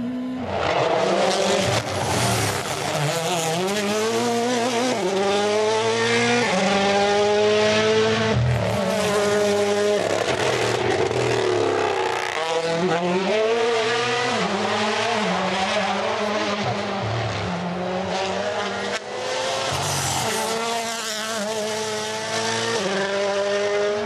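Rally car engines at full throttle, revving up and down again and again through quick gear changes, with tyres squealing at times.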